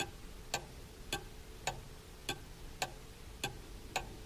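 Clock-ticking sound effect counting down the thinking time on a quiz timer: a sharp, even tick a little under twice a second, eight ticks in all.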